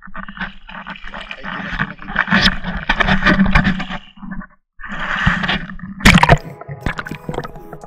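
Seawater sloshing and gurgling around an action camera as it is dipped into shallow water, with a sudden loud hit about six seconds in. Background music comes in near the end.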